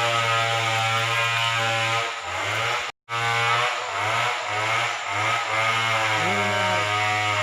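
Small petrol engine running with its revs rising and falling, cutting out abruptly for a split second about three seconds in.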